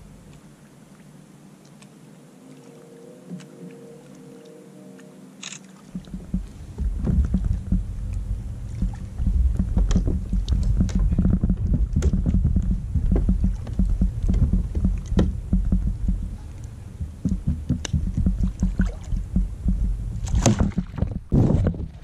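Kayak out on the water: a loud, unsteady low rumble of wind and water with scattered knocks and splashes, coming up suddenly about six seconds in after a quieter stretch.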